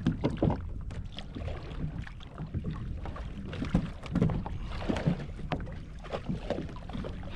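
Water splashing and sloshing around a fishing kayak, with irregular knocks and thumps on the hull as a fish is brought aboard.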